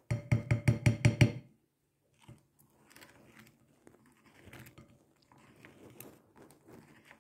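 A spoon clinking rapidly against a glass bowl, about eight quick strikes in the first second and a half, each with a short ring. After that, faint soft scraping as the spoon stirs a thin, wet clay paste in the bowl.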